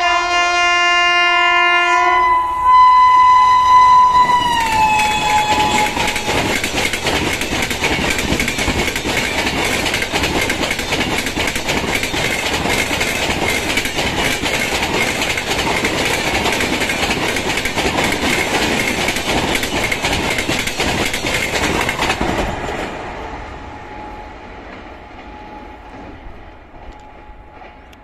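Express train passing at about 130 km/h: the electric locomotive's horn sounds for the first five seconds, its pitch dropping as the locomotive goes by. Then the LHB coaches rush past with a fast clatter of wheels on rail, which dies away from about 22 seconds in.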